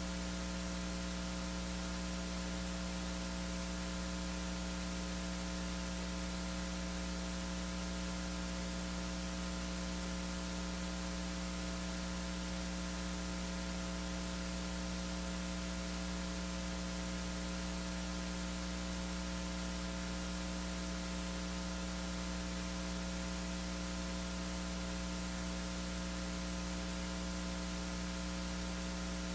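Steady electrical mains hum with a row of fixed overtones and a hiss over it, unchanging throughout: hum and static in the audio line.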